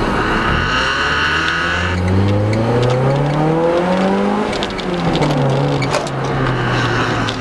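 A car engine pulling hard in one gear, its pitch climbing steadily for about four seconds, then dropping as the throttle is lifted and settling to a steady cruise.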